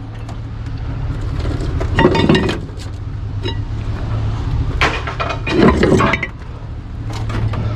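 Chunks of scrap metal thrown down onto a pile, clanking and clattering in three bursts, about two, five and six seconds in, over a steady low hum.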